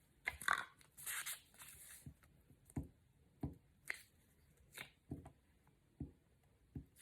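Glue stick rubbed onto a paper cutout, with paper handling: two short scratchy rustles in the first second and a half, then scattered light taps and clicks.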